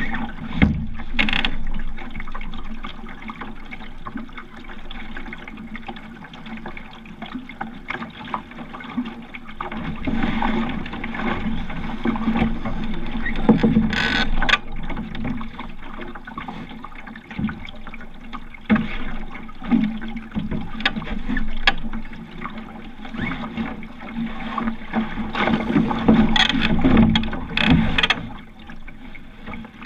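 Water lapping and splashing against the hull of a sailing dinghy under way, uneven and continuous, with a few sharp knocks and taps, one about halfway through and several close together near the end.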